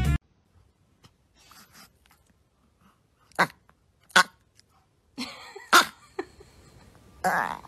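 Chihuahua giving a few short, sharp vocal sounds: two about a second apart midway, then a few more and a longer, noisier one near the end.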